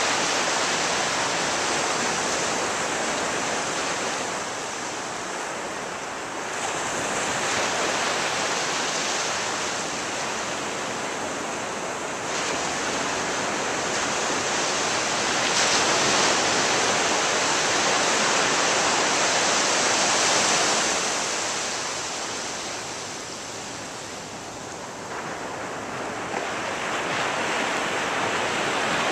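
Ocean surf on a beach: a steady rush of breaking waves that swells and eases every several seconds, with stronger surges a few times.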